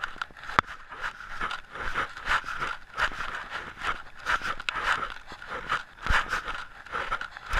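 A hiker's footsteps on a dirt trail, about two a second, each with a scraping rustle of pack and clothing, and now and then a sharp click.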